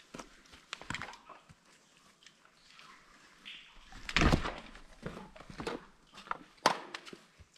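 Irregular footsteps, scuffs and knocks of someone moving over wet, muddy ground, with a louder scuffle about four seconds in and a sharp click near the end.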